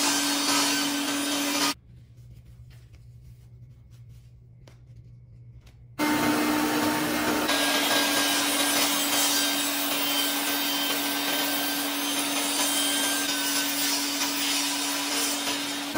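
Table saw running steadily as wooden boards are fed through its blade. The sound cuts out abruptly for about four seconds near the start, leaving only a faint low hum, then comes straight back.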